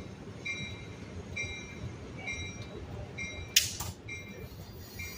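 A short high-pitched warning tone, a bell or beep, repeats about once a second at a stopped bilevel passenger train. About three and a half seconds in, a brief loud burst of air hiss comes twice in quick succession.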